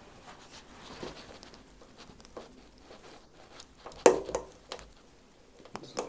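Hands and tools working on an electric water heater's plastic casing: scattered clicks and small knocks, the sharpest about four seconds in.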